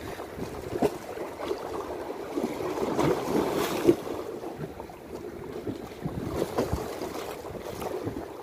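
Small sea waves washing and splashing against concrete breakwater blocks, with a bigger splash about three to four seconds in.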